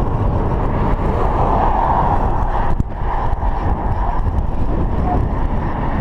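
Steady rushing of wind and road noise on a chest-mounted GoPro Hero 3 while riding a bicycle at speed, with a brief dip about three seconds in.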